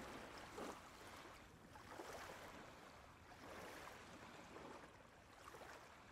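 Faint sea water lapping, rising and falling in soft swells every second or two.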